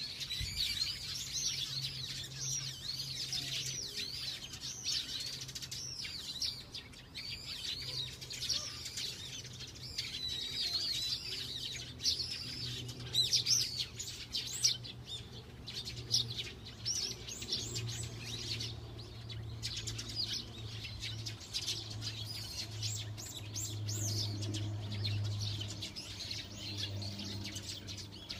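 Small birds chirping and calling, with many quick, high-pitched chirps and twitters throughout, over a low steady hum.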